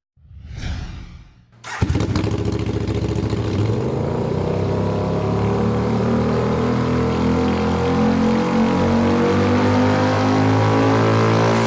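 A brief whoosh, then a motorcycle engine starts abruptly about two seconds in and keeps running loudly, its note climbing slowly as the revs build.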